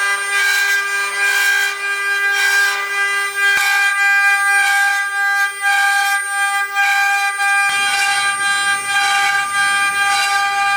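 CNC milling machine cutting: a steady high spindle or cutter whine with overtones, plus a hiss of cutting noise that swells and fades every second or so. A low rumble joins in after about eight seconds.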